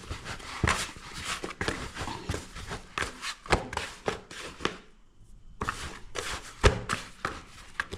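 Irregular knocks, taps and rustles of things being handled on a kitchen worktop, with one louder knock late on.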